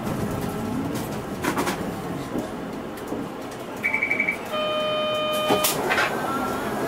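Cabin noise of a Mitsubishi Aerostar one-step city bus on the move: a steady hum of engine and tyres with occasional rattles. About four seconds in, a quick string of high electronic beeps is followed by a one-second electronic chime from the bus's onboard equipment.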